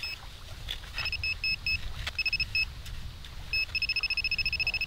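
Handheld metal-detecting pinpointer beeping as its tip is probed into sand. A few short, high beeps come about a second in, then, past halfway, a fast pulsing run of beeps: the signal of the probe closing on a buried coin.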